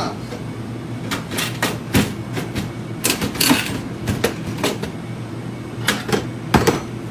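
Irregular clicks, knocks and clatter of hard objects being handled, about a dozen sharp hits spread unevenly, over a steady low hum.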